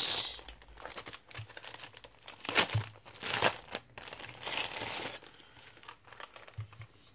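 Clear plastic wrapping crinkling and rustling as it is handled and pulled off a pouch, in irregular bursts, loudest about two and a half to three and a half seconds in and quieter near the end.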